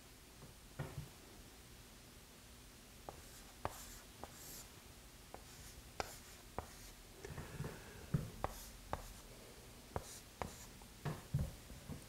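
Chalk on a chalkboard: a faint, uneven series of sharp taps and short scratching strokes as lines and an arrow are drawn.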